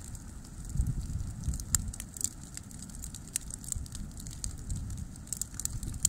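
Brushwood bonfire of dead branches burning, with a low rumble and scattered sharp crackles and pops from the burning twigs.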